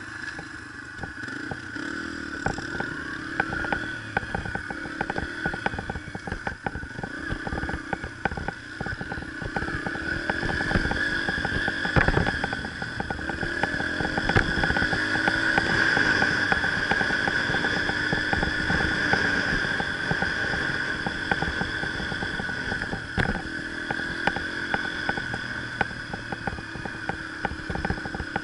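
Dirt bike engine running under way, the rider working the throttle. It picks up speed and gets louder about halfway through, then holds a steadier pace.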